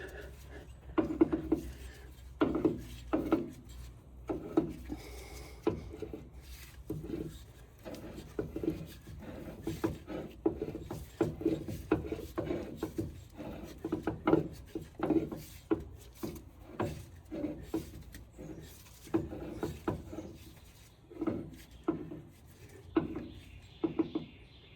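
Ring and pinion gears of a GM 10-bolt (8.5-inch, 3.73) rear differential being turned by hand against drag on the ring gear, making a run of short rubbing, grinding strokes about one or two a second. This is the gears being rolled through the marking compound to print a tooth contact pattern.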